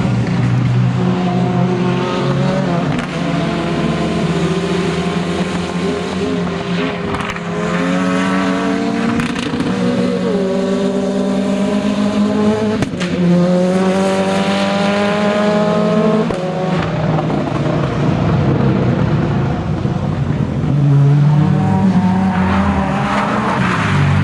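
Ford Escort rally car's engine revving hard through the gears, its pitch climbing and then dropping at each upshift, with a sharp crack about halfway. Near the end a second rally car's engine takes over.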